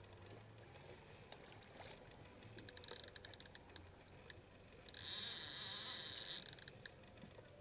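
Fishing reel working against a hooked fish: a short run of quick clicks about three seconds in, then a high, steady buzz lasting about a second and a half as the drag gives line.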